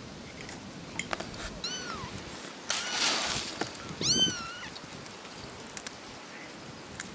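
Very young kittens mewing: a high, arched mew about one and a half seconds in and a louder one about four seconds in, with a short burst of noise between them.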